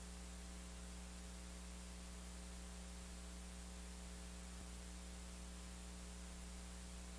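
Steady electrical mains hum with a hiss underneath, an even buzz of many stacked tones that does not change.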